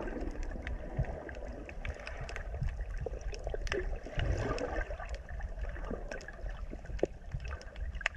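Water gurgling and sloshing, with many small sharp clicks and pops scattered irregularly throughout.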